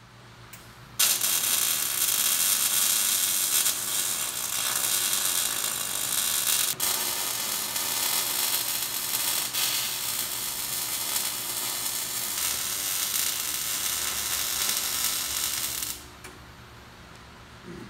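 Millermatic 252 MIG welder running a long weld bead on an axle's inner C gusset: a steady crackling hiss of the arc. It strikes about a second in, breaks for a moment about seven seconds in, and stops shortly before the end.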